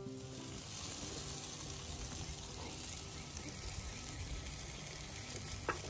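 Chicken drumsticks sizzling on a grill grate, a steady even sizzle, with a single click near the end.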